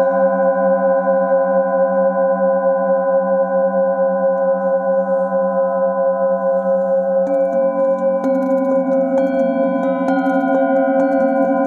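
Singing bowls ringing with a steady, wavering set of tones, then struck in turn with a felt mallet from about seven seconds in, roughly once a second, each strike adding fresh ringing tones over the ones still sounding.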